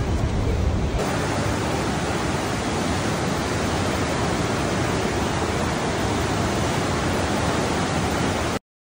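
Whitewater rapids of the Niagara River rushing in a steady, even roar of water. About a second in the rush turns brighter and hissier, and near the end it cuts off suddenly.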